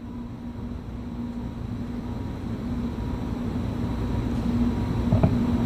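Low rumble of aircraft engine noise with a steady hum, growing steadily louder as it approaches. A few light knocks sound about five seconds in.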